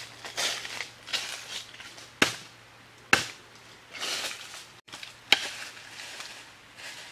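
Three sharp knocks or cracks, about two, three and five seconds in, between swells of rustling noise.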